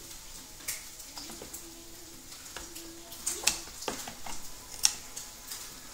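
Scissors snipping and crunching through the fur and fabric of a robotic plush toy cat, a few sharp snips with the loudest near the middle and about five seconds in.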